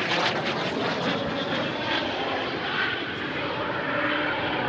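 Steady jet engine noise from Aero L-39 Albatros jet trainers flying a formation display, with a faint whine over it.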